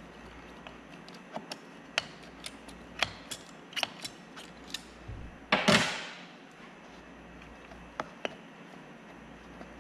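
Scattered light clicks and clinks of pliers and the oil filter knocking against the Tohatsu outboard's powerhead as the filter is worked out of a tight spot. One louder rattling clatter comes a little past halfway, then two more clicks.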